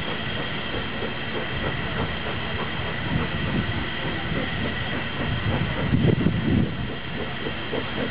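Steam-hauled shuttle train made up of GNR N2 and J94 tank locomotives working up a short line: a steady rumble of the locomotives and rolling stock. It swells louder twice, about three seconds in and again about six seconds in.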